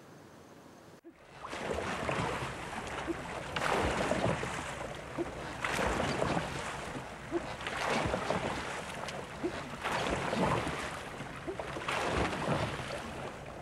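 Sea water splashing and rushing around a rowed wooden plank boat, starting about a second in and swelling roughly every two seconds, in time with the strokes.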